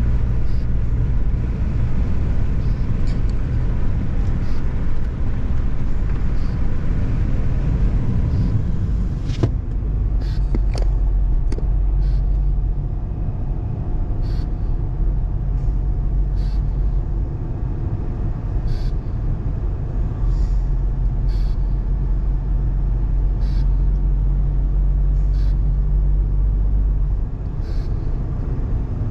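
A car driving along the road: a steady low rumble of engine and tyre noise, with scattered faint clicks.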